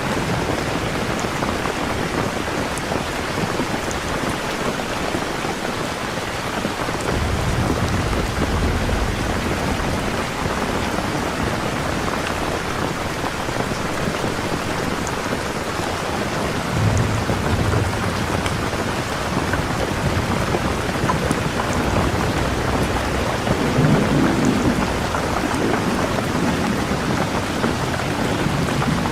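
Steady rain falling, with thunder rumbling low three times: about seven seconds in, again around seventeen seconds, and more strongly around twenty-four seconds.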